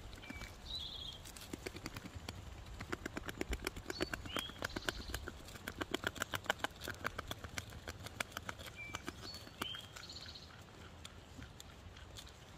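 A beaver gnawing and chewing a twig: a quick run of crisp crunching clicks, several a second, loudest through the middle. Short bird chirps sound now and then in the background.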